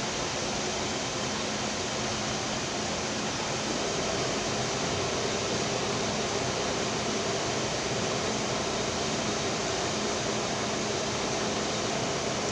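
Electric fan running: a steady whir with a faint low hum, a little louder from about four seconds in.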